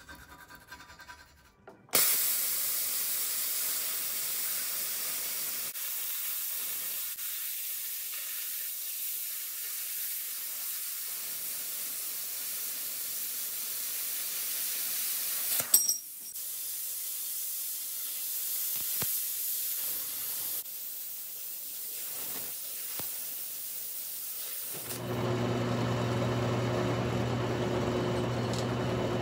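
A hand plasma cutter hissing steadily as it cuts a steel plate. It starts suddenly about two seconds in, breaks off for a moment about halfway, then carries on until a few seconds before the end. Near the end a drill press motor takes over with a steady hum.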